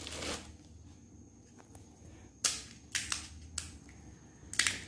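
Several sharp, crisp cracks: fried pani puri shells being cracked open and handled. The loudest comes about halfway through, a few quicker ones follow, and there are two close together near the end.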